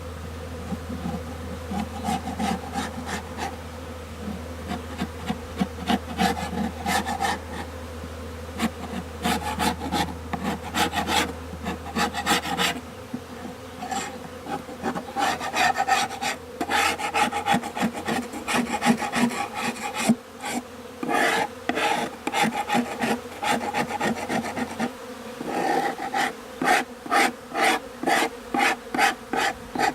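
A wooden beehive bottom board being scraped clean in many short, repeated strokes, coming in a quicker, regular run near the end. Honeybees buzz steadily around it.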